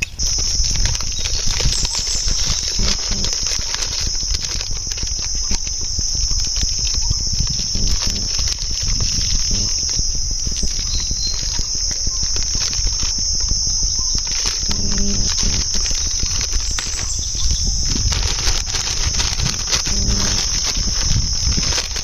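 Loud, steady, high-pitched drone of insects, a cicada-like chorus, unbroken throughout. Underneath sits a low rumble with small crackles.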